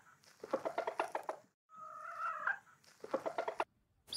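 Chicken calls: a drawn-out pitched call followed by a quick run of clucks, the same phrase heard twice with a short break between.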